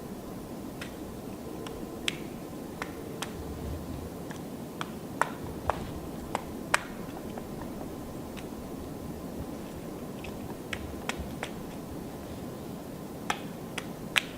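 Black woodpecker pecking at and prying bark off a rotten trunk: irregular sharp knocks and cracks, spaced unevenly rather than in a drumming roll, with a few louder ones a little past the middle and near the end. A steady low hum of background noise lies underneath.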